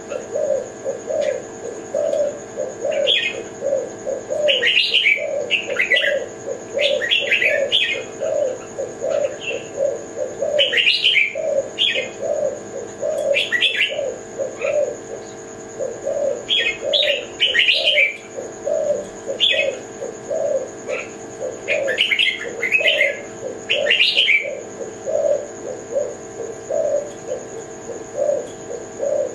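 Spotted dove (tekukur, Kelantan type) cooing in a steady run of short low coos, about two a second. Clusters of higher chirps from other birds come and go over it, with a faint steady high whine underneath.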